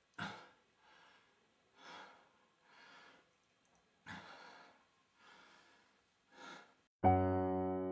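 A man breathing heavily and raggedly in distress, about one breath a second, with a few sharp gasping intakes. About seven seconds in, a sustained electric piano chord starts loudly.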